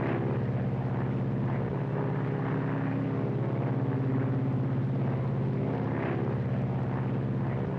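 The piston engines and propellers of a four-engine Lockheed Super Constellation airliner, running with a steady low drone.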